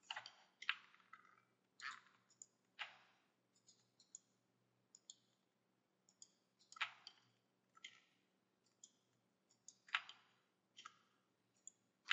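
Irregular computer mouse clicks and keyboard key presses, a dozen or more short sharp clicks with a few louder ones scattered through, over a faint steady low hum.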